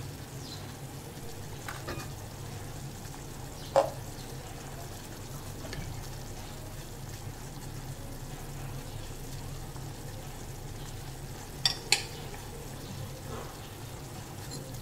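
Vegetables sizzling quietly in a steel pot on a gas stove, over a low steady hum. A metal clink about four seconds in, and two louder clinks close together near the end, from a utensil against the pot.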